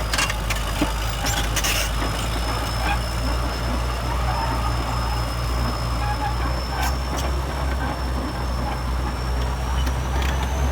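Bulldozer's diesel engine running steadily, with a thin high whine throughout that rises slightly near the end. A few sharp clanks come in the first couple of seconds.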